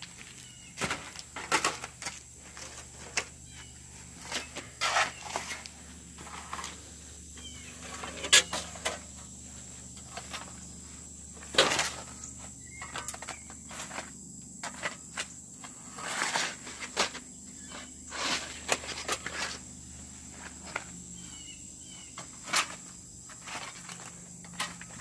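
Metal-tined rake scraping and dragging through pieces of old asphalt roofing shingle on grass, in irregular strokes with rustling and clatter. A steady high-pitched tone runs underneath.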